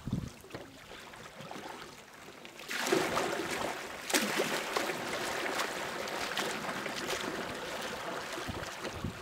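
Kayak paddle blades splashing and churning water as the boat is driven away with hard strokes. A quieter lapping of water runs for about the first three seconds, then a steady run of splashes takes over.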